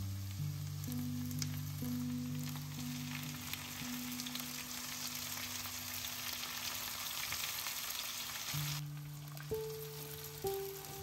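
Food sizzling and crackling in a hot frying pan, with soft background music. The sizzling stops abruptly near the end.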